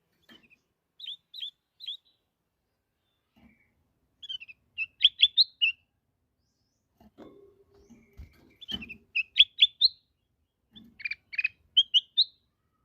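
Kutilang emas (ruby-throated bulbul) singing in short phrases of quick, sharp chirping notes, with a few quick phrases clustered in the second half. A couple of low knocks come about halfway through.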